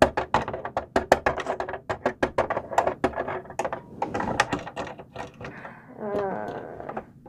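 Many quick clicks and taps of hard plastic as a Littlest Pet Shop figure is handled against a plastic toy food truck playset and moved into its cab. The clicks are thickest in the first five seconds and thin out after.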